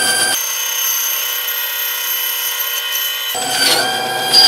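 Band saw running, its blade cutting through the thick leather and rubber sole of a Goodyear-welted boot, with a steady machine whine. The blade strains against the tough sole, and the whine dips in pitch twice near the end as the cut bogs it down.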